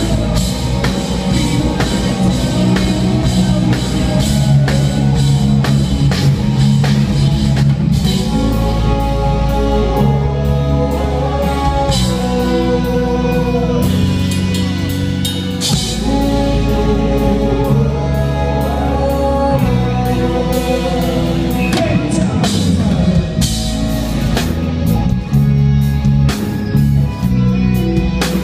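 Rock band playing live: drum kit, electric guitars and bass through the PA, heard from the audience.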